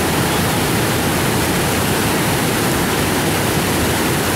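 Steady, loud rushing of whitewater river rapids.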